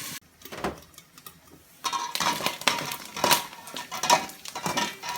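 Pork fat and pork frying in their own rendered oil in a covered pot, sizzling and spattering. It is quieter for the first couple of seconds, then the sizzle comes back with frequent sharp pops.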